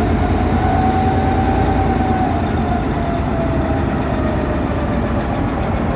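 EMD G22 diesel-electric locomotive's 12-cylinder two-stroke 645 diesel running with a deep, steady snore. A faint whine over the rumble rises slightly and fades out about three seconds in.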